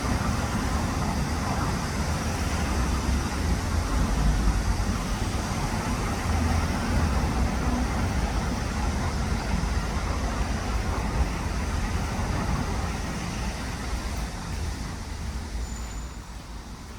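Road traffic noise: a steady low rumble of passing vehicles that swells and then fades near the end.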